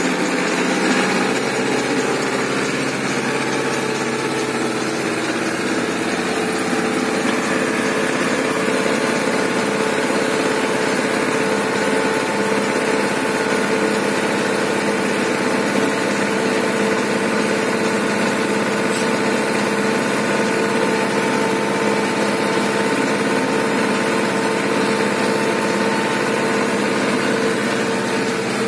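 Zetor 7211 tractor's four-cylinder diesel engine running steadily under load while pulling a four-furrow plough, heard from inside the cab as an even drone.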